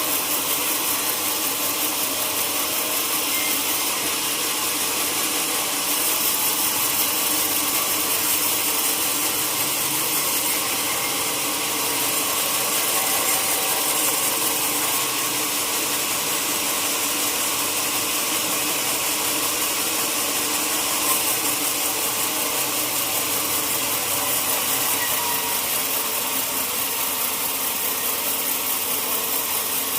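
Sawmill saw machinery running steadily, a dense, even mechanical noise with a hissing top that holds without a break.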